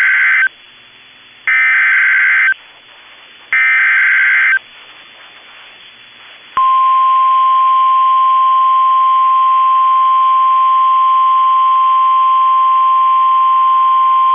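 NOAA Weather Radio Emergency Alert System header: bursts of SAME digital data, each a harsh warble about a second long with a second of faint static between. About six and a half seconds in comes the steady, single-pitched 1050-hertz warning alarm tone. It signals an alert about to be read, here a severe thunderstorm warning.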